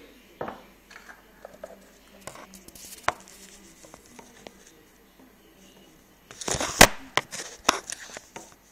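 Handling sounds of a plastic pot and loose packing: light scattered clicks and rustles, then a louder cluster of knocks and rustling about two-thirds of the way through.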